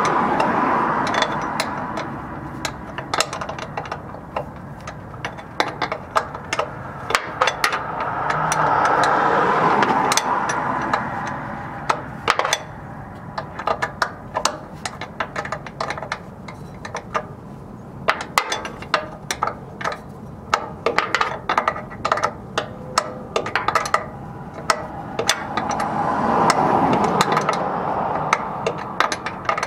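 Hand tools and metal fittings on a semi truck's sleeper cab airbag mount: a long run of irregular sharp clicks, clinks and knocks. Three times a rushing noise swells up and fades away, louder than the clicks.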